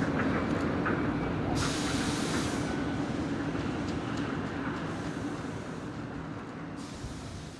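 Diesel-hauled train running on the rails with a steady low rumble, slowly getting quieter, with two spells of hiss.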